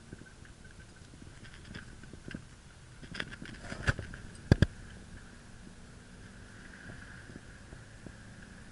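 Cabin noise of a moving car on a wet road: steady tyre and engine noise with scattered small clicks and rattles. A few sharp, loud knocks come about four to five seconds in.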